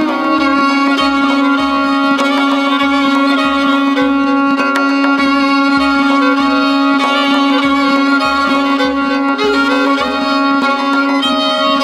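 Solo violin playing a chaharmezrab in the Persian mode Navā: quick bowed figures over a steady low pedal note.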